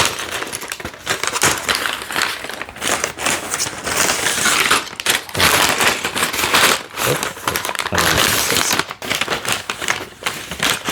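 Paper bags of Lego pieces being handled, rustling and crinkling continuously with small clicks.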